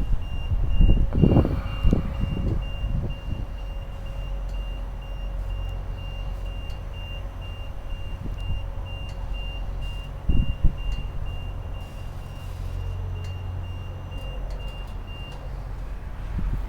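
A vehicle's reversing alarm beeping at an even pace over a steady low engine rumble; the beeping stops shortly before the end.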